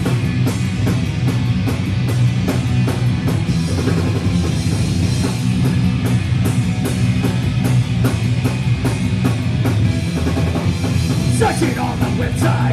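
Hardcore punk band playing live: loud guitar and bass over a steady, fast drumbeat, an instrumental passage without vocals.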